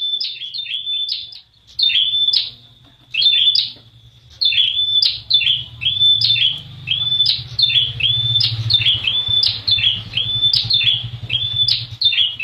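Caged prenjak wulung, a prinia, singing: quick runs of repeated chirps separated by brief pauses, over a steady low hum.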